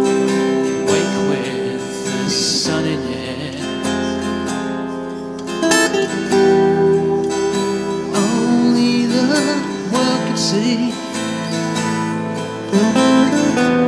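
Acoustic guitar played live, chords struck and left to ring, with a new chord struck every few seconds.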